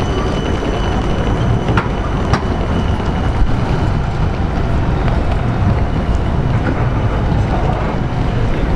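A Siemens Combino tram moving along the platform, heard as a steady low rumble of tram and street noise, with two short clicks about two seconds in.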